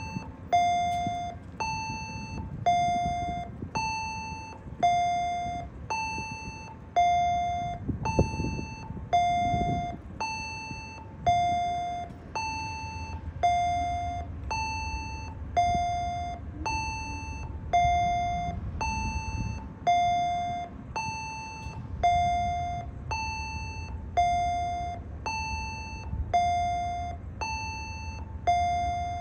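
Railway warning bell dinging steadily, alternating between two pitches at about one stroke a second, each ding fading before the next, over a low diesel rumble from the train.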